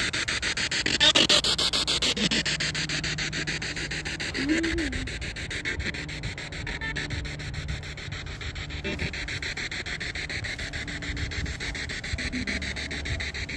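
Spirit box radio sweeping through stations: a steady hiss of static, rapidly chopped by fast clicks. There is a louder burst about a second in and a few brief fragments of sound, but no clear words.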